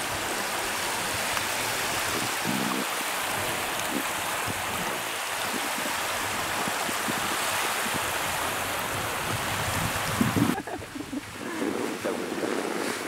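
Steady rushing of wind and choppy waves on open water. About ten seconds in it cuts suddenly to a quieter, more uneven wash.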